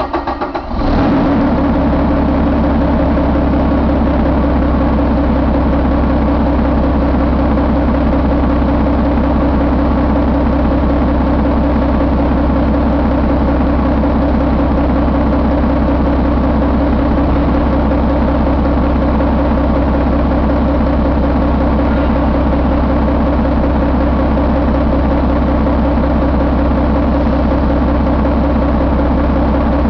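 2019 Volvo D11 inline-six diesel engine, freshly started, coming up to speed and settling into a steady idle about a second in.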